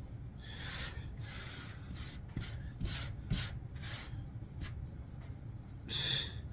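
Blade Point bushcraft knife scraping along wood in a series of short, quick strokes, with one stronger stroke near the end.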